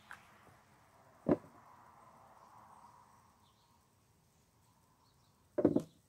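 Two bursts of handling noise as gloved hands work a potato plant and its soil in a plastic tub: a single dull thump about a second in, then a quick cluster of knocks near the end.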